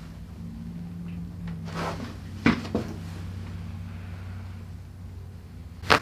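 Chiropractic neck adjustment at the C3 vertebra: a sharp joint crack (cavitation) near the end, preceded about halfway through by a couple of softer knocks. A steady low hum runs underneath.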